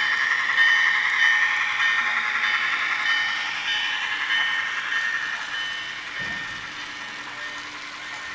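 Model Atlas GP7 locomotive's MRC sound decoder playing diesel-engine sound through its small speaker, mixed with the rolling of the model freight train on the track. The sound fades steadily as the train moves away.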